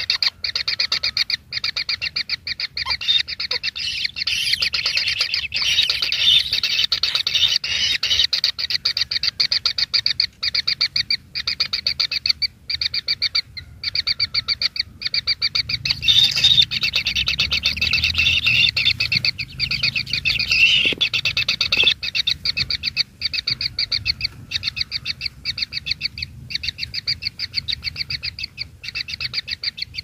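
Kingfisher nestlings begging as they are fed in their burrow nest: a constant, rapid chittering of short, high calls, many a second.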